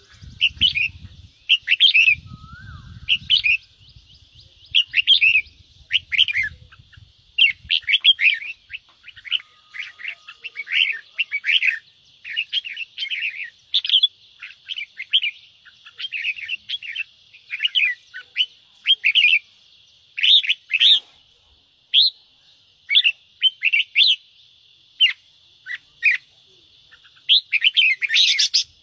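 Red-whiskered bulbul giving its excited chattering 'ché' calls: quick, irregular runs of short chirps, one after another with brief gaps.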